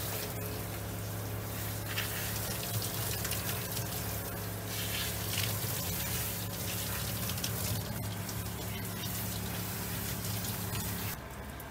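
Handheld shower sprayer spraying a steady stream of water onto a dog's wet coat in a grooming tub, with splashing, over a steady low hum. Both cut off about 11 seconds in.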